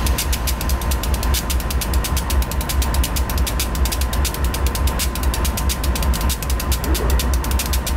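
A CSX GE CW44-9 diesel-electric locomotive's V16 diesel running heard close up. It gives a steady, evenly pulsing low throb with a fast, regular mechanical clicking several times a second.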